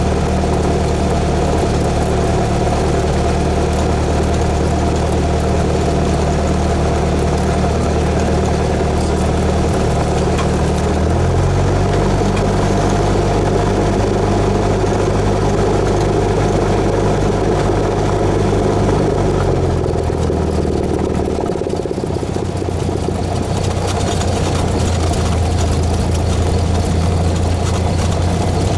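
Cessna 172S's four-cylinder Lycoming piston engine and propeller running steadily. The engine note shifts about eleven seconds in and drops again around twenty seconds in, as the power setting changes.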